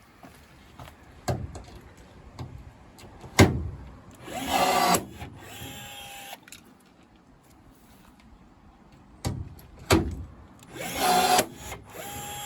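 Rivet gun setting rivets in an aluminium body panel: sharp knocks, then two setting cycles, each a short loud burst of mechanical noise followed by a steady tone of about a second. The 'next one' pushes out the spent piece that did not drop from the gun.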